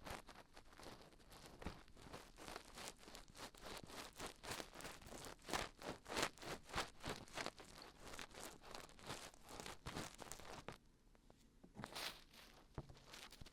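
Dried glue being peeled off the ears of a 3Dio binaural microphone: a dense run of crackly, crinkly peeling sounds that eases off about ten seconds in, with a few more crackles near the end.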